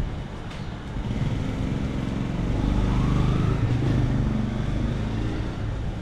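A motorbike engine running as it passes close by, growing louder toward the middle and easing off near the end.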